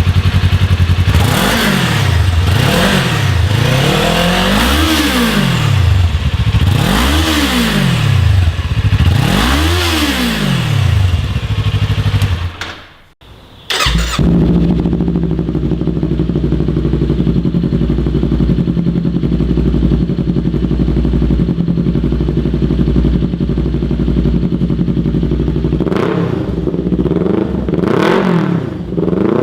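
Kawasaki Ninja 400 parallel-twin engine on its stock exhaust, blipped several times, each rev rising and falling back to idle. After a brief break it idles steadily on a Hindle Evo Megaphone full-system exhaust, with a deeper, evener tone, and is revved a couple of times near the end.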